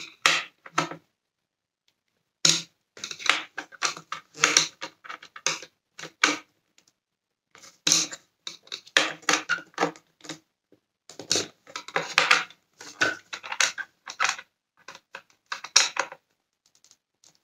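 Screwdriver being worked on the plastic cyclone unit of a Dyson Cinetic Big Ball vacuum: irregular hard-plastic clicks, ticks and rattles, in bursts separated by short pauses.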